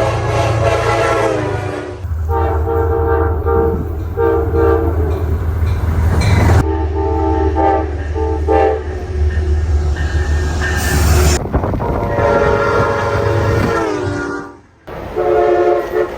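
Passing trains sounding their multi-tone horns in repeated blasts over the low rumble of the train running, in a series of short clips that change abruptly.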